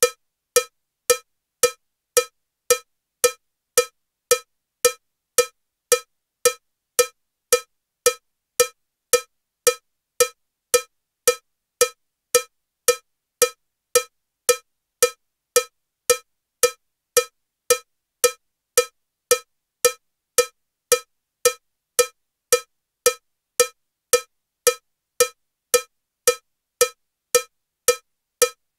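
Metronome set to 112 beats per minute with a cowbell sound: short, evenly spaced cowbell strikes a little under two a second, all alike, with silence between.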